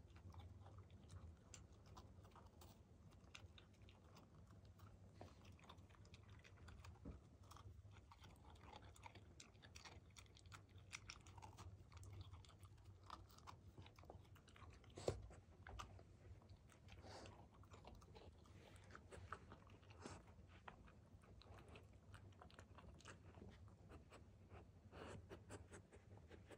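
A Rottweiler puppy nibbling and chewing a crunchy cookie held in a hand: faint, irregular crunches and chewing, with one sharper crunch about fifteen seconds in.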